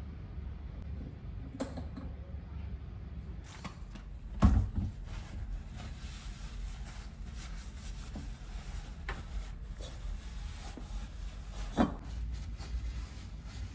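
Scattered knocks and clicks of household objects being handled, over a steady low hum. The loudest knock comes about four and a half seconds in, and another near the end.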